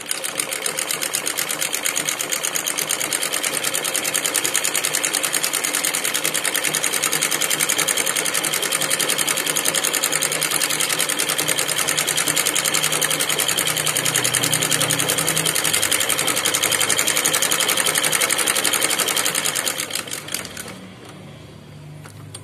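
Classic sewing machine running with a buttonhole attachment fitted, stitching a buttonhole: a fast, even run of stitches that slows and stops near the end.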